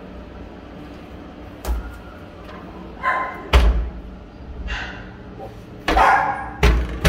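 2.5-week-old puppies whimpering, with two short squealing cries, about three seconds in and again about six seconds in, among a few dull thumps.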